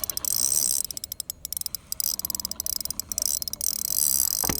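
Insects calling in a fast, high-pitched pulsing trill, with one short knock near the end.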